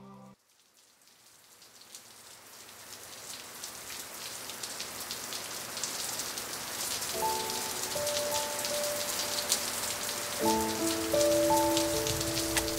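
Rain falling steadily, a dense hiss of many small drop ticks, fading in and growing louder over the first several seconds. A soft melody of held notes comes in about seven seconds in and again near the end.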